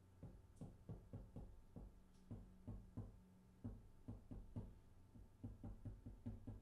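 Faint, irregular light taps and clicks, about four a second, from a small pointed tool pricking and pressing large bubbles in an emulsion transfer on a Claybord panel.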